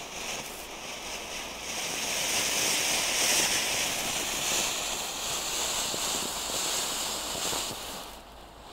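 Weco Luftikus firework fountain burning with a steady hiss of spraying sparks. It grows louder about two seconds in and dies down near the end.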